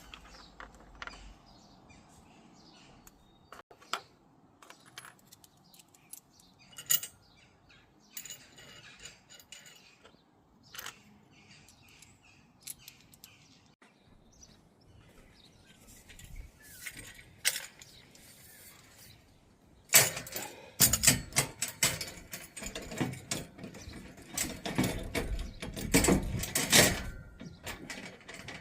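Metal clicks and knocks of hand tools and bracket fittings being worked on a steel strut roof rack, scattered at first, then turning into a loud, dense clatter about two-thirds of the way in.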